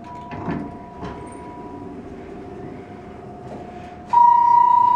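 1998 Dover hydraulic elevator arriving and its doors sliding open with a low rumble over a steady hum. About four seconds in, a loud, steady electronic beep sounds and holds.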